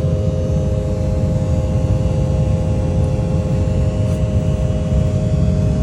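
Steady jet airliner cabin noise: a low, even rumble with a steady hum over it.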